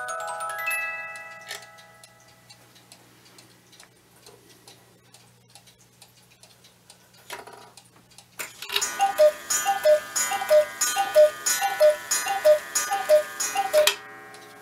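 Cuckoo clock: its music-box waltz finishes about a second and a half in, then the movement ticks quietly. After a brief clatter as the hands are moved, the cuckoo starts calling, a rapid even run of two-note cuckoo calls, about two a second, each with a sharp metallic ring, that stops just before the end.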